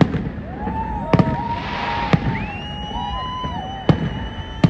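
An aerial fireworks display, with shells bursting in sharp bangs about once a second over a continuous rumble. Several whistles glide up in pitch, hold and fall away between the bangs.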